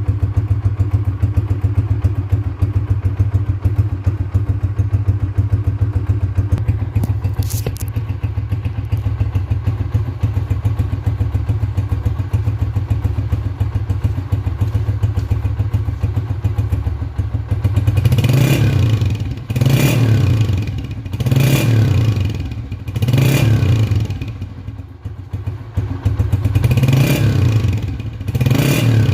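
Honda CG125 single-cylinder four-stroke engine idling steadily through a KYH SC aftermarket silencer. After about eighteen seconds it is revved in about six short throttle blips.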